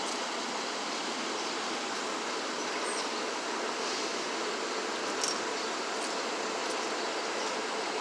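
Steady background noise of city street traffic, an even wash of sound with a few faint ticks and no clear single event.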